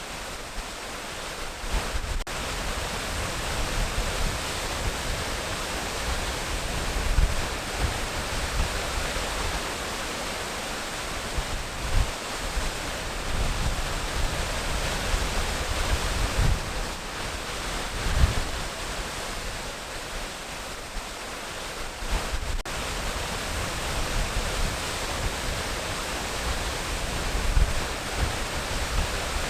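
Waterfall rushing in a steady, dense hiss of falling water, with irregular low rumbles underneath.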